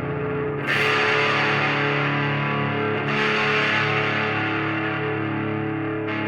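Electric guitar with distortion, played through its single humbucker pickup: full chords strummed about a second in and again about three seconds in, each left to ring out, with another strum near the end.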